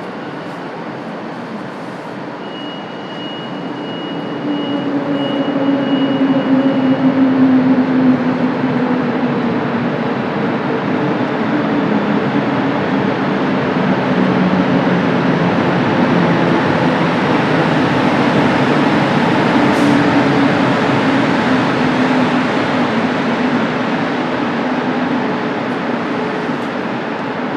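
Train running at a railway station platform. Its rushing noise swells about four seconds in and holds, under a low motor hum that slowly drops in pitch. A thin high whine sounds for a few seconds near the start, and there is a single sharp click about twenty seconds in.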